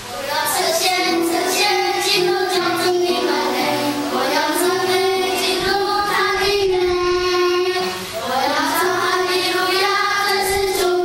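A young boy singing a worship song into a microphone, holding long notes, with a short pause for breath about eight seconds in.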